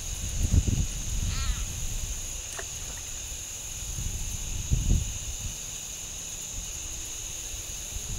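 A steady, high-pitched drone of insects at a pond edge, with a short harsh animal call about a second in. A couple of low thumps, about half a second in and near five seconds, are the loudest sounds.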